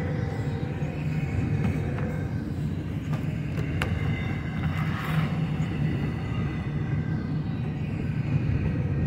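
Double-stack intermodal freight train rolling past: steel wheels on rail give a steady rumble, with faint high tones above it and one sharp click about four seconds in.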